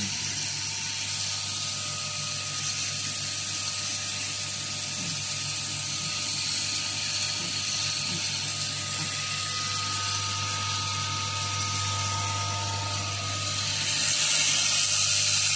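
Automatic denim shank button and rivet attaching machine running with a steady hum and high hiss. The hiss grows louder about 14 seconds in.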